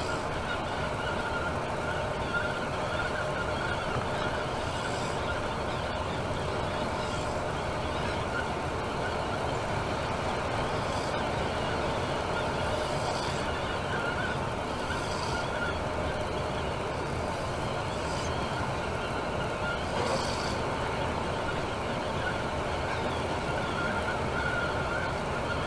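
Temsa Maraton coach driving at steady speed on a motorway: an even drone of engine and road noise with a steady whine, broken by several short hisses.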